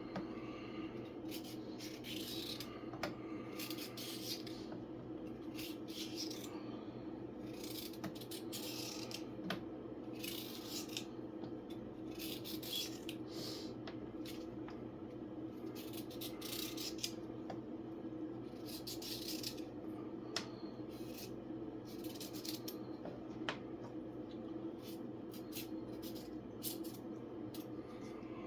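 A knife working on a carrot: repeated short scraping strokes at an irregular pace, with a few sharp taps in between, over a steady low hum.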